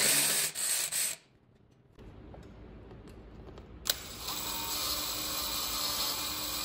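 A cordless driver whirs briefly at the start, backing out a screw. From about 4 s in, a cordless drill with a step bit runs steadily, widening a hole in the battery charger's mounting bracket.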